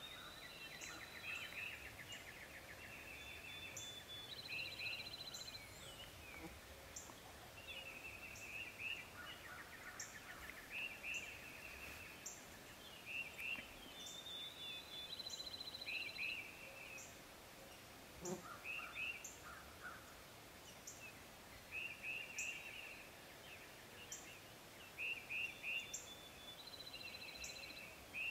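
Faint chorus of wild songbirds: several birds repeating short trilled phrases, with a thin high chip repeated about once a second.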